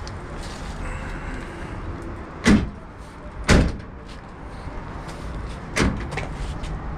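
Trunk lid of a 2012 Toyota Camry brought down three times, each a sharp thud against the body without latching: the lid does not close yet and still needs adjusting.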